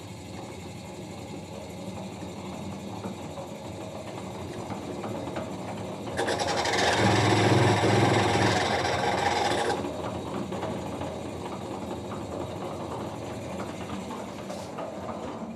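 Band saw variator drive running while the speed crank is wound up through its range, the machine sound growing louder. From about six to ten seconds in, a loud, harsh noise at the highest speed: a nasty noise from the variator pulley hitting its adjustment screw.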